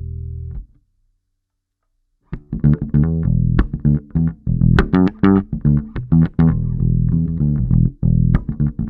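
Electric Precision bass wired with a TBX tone-control harness: a held note is cut off less than a second in. After about a second and a half of silence, a fast riff of sharply plucked notes starts.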